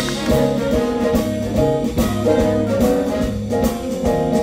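Live band playing a jazz-style instrumental, with held notes over a drum kit keeping the beat.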